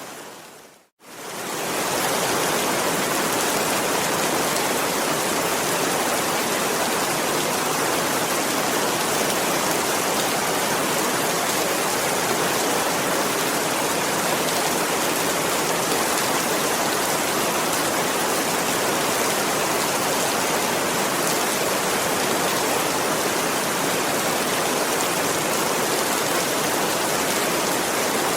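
Steady, dense rain noise that briefly fades to near silence about a second in and swells straight back up.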